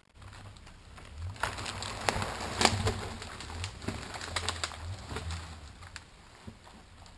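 A large pine log dragged up a brushy slope on a cable, crackling and snapping through dead branches and twigs, with several sharp cracks, the loudest about two and a half seconds in. A low steady hum runs underneath.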